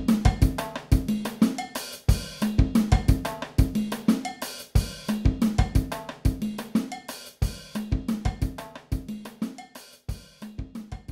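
Background music with a drum-kit beat, cymbals and hi-hat over a repeating bass line, fading toward the end.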